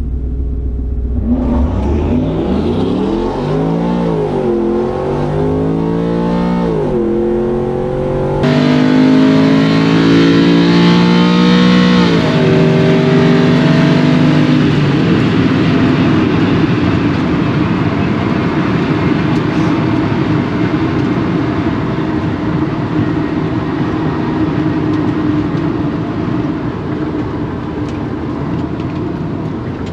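Ford Ranger pickup's engine at full throttle on a quarter-mile drag pass, heard inside the cab: the revs climb and drop sharply several times as the automatic transmission upshifts. About halfway through the pitch lines give way to a steady rush of road and wind noise as it lifts off and coasts.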